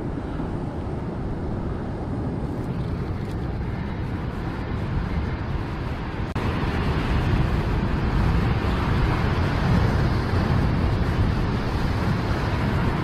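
Steady low rushing noise of wind on the microphone at a seaside rock ledge, stepping up louder about six seconds in.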